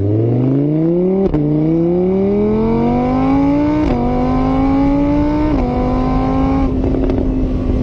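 Car engine accelerating through the gears: its pitch climbs, drops sharply at three gear changes, then holds steady near the end.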